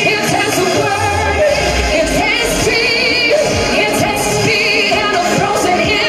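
A woman singing live into a microphone over a loud dance-pop backing track with a steady beat, her held notes wavering in vibrato.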